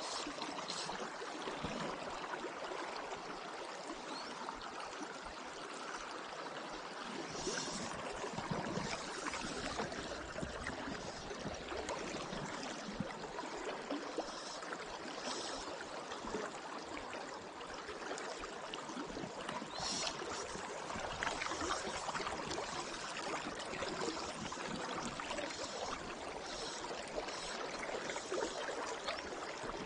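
Steady rush and gurgle of flowing river water, with a few faint clicks.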